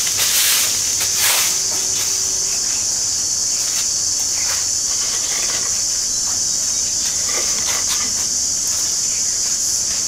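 Steady high-pitched shrilling of insects. A couple of straw-broom sweeps scrape the dirt yard in the first second and a half, with a few faint rustles and ticks after that.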